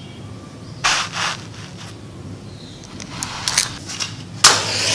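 Small objects scraped and rubbed as they are handled, then a few light clicks, then a wooden match struck near the end: a sharp scrape flaring into a brief hiss.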